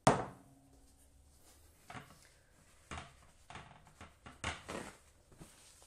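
A glass mixing bowl of choux paste set down on the worktop with a sharp clunk and a brief ring, followed by a few softer knocks and scrapes.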